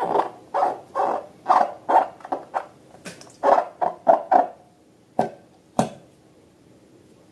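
Slime being squeezed and kneaded by hand, squelching about twice a second, then two sharp clicks about five and six seconds in.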